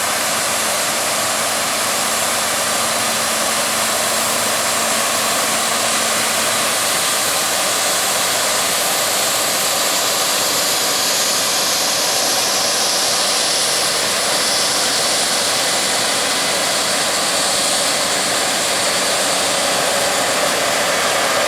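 Harvest machinery running steadily under load, a continuous even rush of mechanical noise with little deep rumble.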